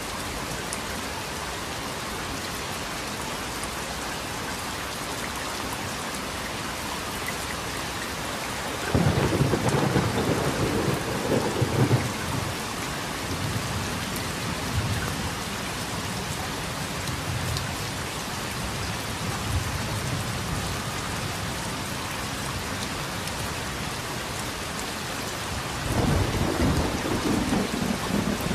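Steady rain hissing, with a low rumble of thunder that breaks in suddenly about a third of the way through and rolls on, fading, for several seconds. A second rumble of thunder starts near the end.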